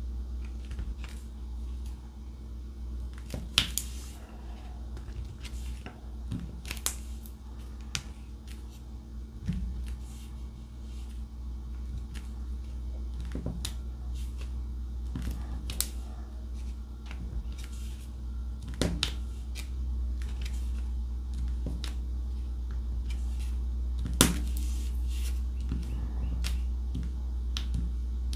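Light clicks and taps at irregular intervals as a diamond painting drill pen picks up resin drills from a tray and presses them onto the canvas, the sharpest click about 24 seconds in.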